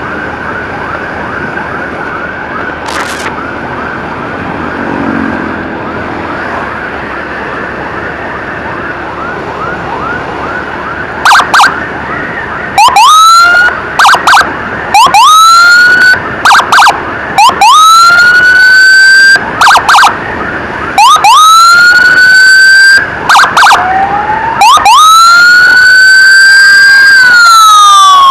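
Electronic emergency sirens. For the first ten seconds or so a fast yelp sounds under road noise; then a much louder, close siren takes over, alternating rising whoops with short stuttering bursts, and near the end it goes into a long wail that rises and then falls.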